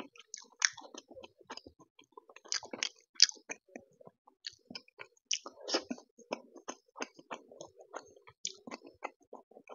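Close-up eating sounds: wet chewing, lip smacks and finger sucking, made as many short, irregular mouth clicks while a soft, syrupy gulab jamun is eaten and curry is licked off the fingers.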